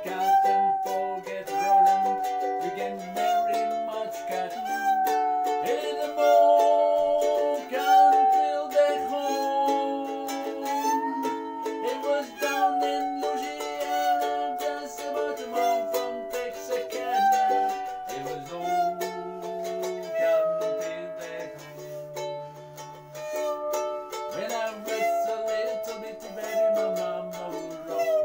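A handsaw bowed with a violin bow as a musical saw, playing the melody in long, pure notes that glide from pitch to pitch, over a strummed ukulele.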